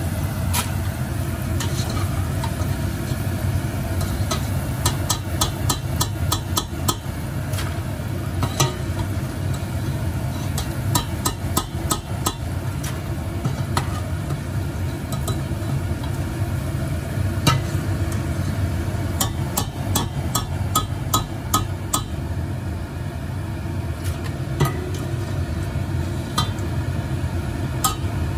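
Cassava chips frying in hot oil, stirred with a metal ladle that clicks and scrapes against the pan again and again, over a steady low hum.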